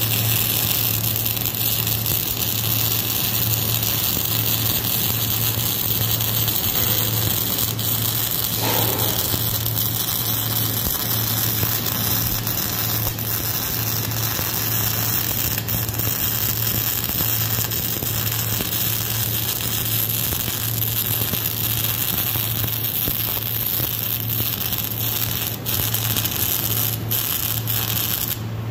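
Wire-feed (MIG) welding arc on steel, a steady crackling hiss as a continuous bead is run, stopping abruptly just before the end. A steady low hum runs underneath throughout.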